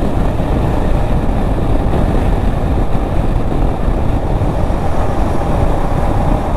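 Wind rushing over the microphone with the KTM 390 Adventure's single-cylinder engine running steadily at highway speed, about 90 km/h, riding into a road tunnel near the end.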